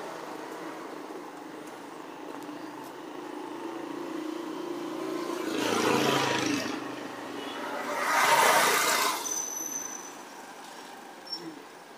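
Street traffic: motor vehicles pass close by twice, each one rising and fading, about six and about eight and a half seconds in, over a steady hum of engines.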